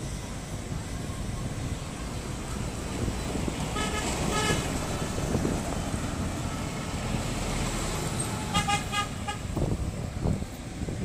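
Road traffic with trucks passing close by: a steady engine and tyre rumble. A vehicle horn gives two short beeps about four seconds in, and a quick string of beeps comes about two-thirds of the way through.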